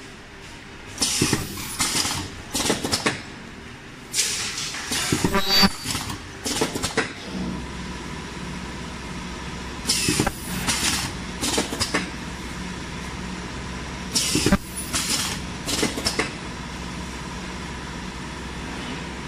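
Mask earloop welding machine cycling as it welds ear loops onto mask blanks. Clusters of several short, sharp hissing bursts come every four to five seconds, over a steady machine hum that steps up a little partway through.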